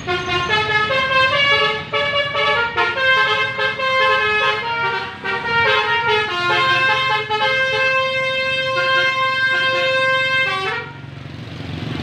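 Tour bus's Basuri telolet horn playing a melody in quick note-by-note steps. It ends on one long held note and cuts off about two-thirds of the way into the final seconds, over the low rumble of the bus engine.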